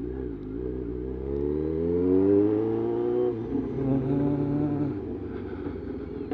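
Motorcycle engine with a loud aftermarket exhaust accelerating: its pitch rises for about three seconds, drops at a gear change, then holds steady as the bike cruises.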